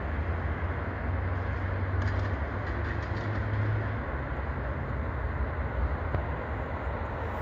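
Steady low rumble and hiss of road traffic on a wide city road, with no single vehicle standing out.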